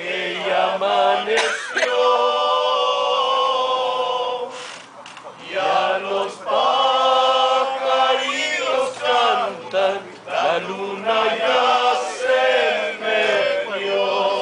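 A mariachi group singing together, men's voices holding long, wavering notes over guitars. The phrases break briefly about five and ten seconds in.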